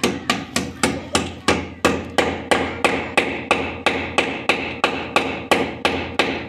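Hand hammer striking in steady, even blows, about three a second, each blow with a short ringing tone.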